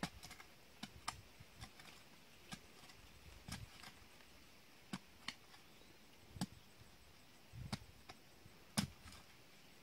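A short-handled digging tool chopping into packed soil, about a dozen irregular strikes, some sharp and some dull, with the loudest near the end.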